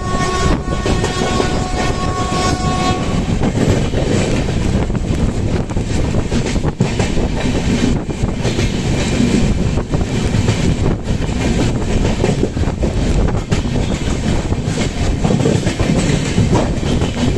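A train horn sounds one steady chord for about the first three seconds. After that comes the loud, continuous rumble and clatter of a passenger train's coaches running past on the adjacent track, heard from the open door of a moving train.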